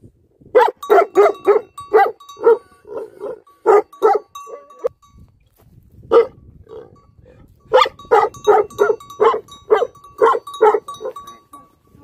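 Livestock guardian dog barking deeply at about three barks a second in two runs, with a short pause and a single bark between them.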